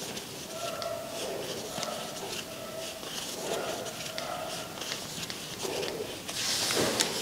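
Crochet hook working yarn stitch by stitch: soft scratchy rubs and small squeaks of yarn pulled over the hook, about two a second, with a louder rustle and a click near the end.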